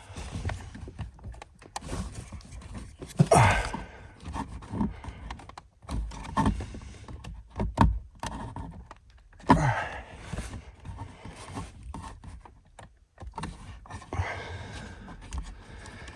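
Hands working at wiring and plastic connectors under a car's dashboard footwell: scattered clicks, knocks and rustling, irregular and uneven in loudness, with two louder rustling sweeps about three and nine seconds in.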